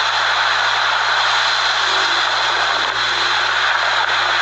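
Strong wind from a nearby tornado rushing steadily and loudly, with no let-up.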